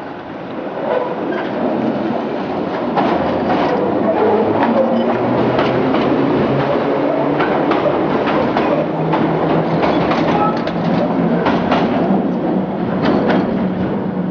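Ex-London Underground 1938 tube stock electric train (Island Line Class 483) running along the platform close by, getting louder over the first few seconds as it comes near. Its wheels clack sharply over rail joints again and again, over a rumble and a low motor hum that rises in pitch.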